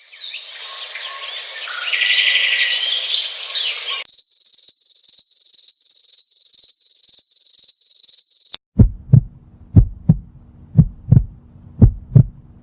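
A run of separate sound effects: first about four seconds of a busy, noisy texture, then a cricket chirping in a steady high-pitched pulse, about three chirps a second. From about nine seconds in comes a heartbeat, low double thumps about once a second.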